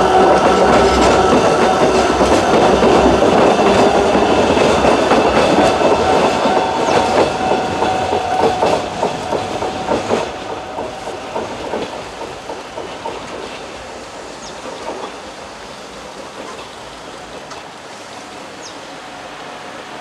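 Narrow-gauge electric train running past and pulling away, its wheels clattering over the rail joints. The sound fades steadily as the train recedes.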